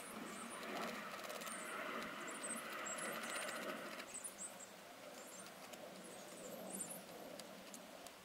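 Faint scraping of a plastic palette knife spreading leather repair filler into a tear in a leather car seat, strongest in the first four seconds, with brief high-pitched sounds scattered over it.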